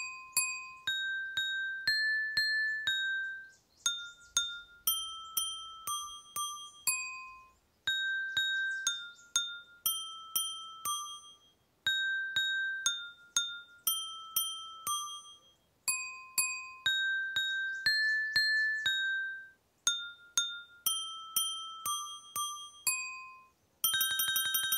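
Drinking glasses filled to different water levels, struck with mallets to play a simple tune. Single ringing notes change pitch with how much water is in each glass. The notes come in phrases of about four seconds with short gaps, and a quick run of notes falls near the end.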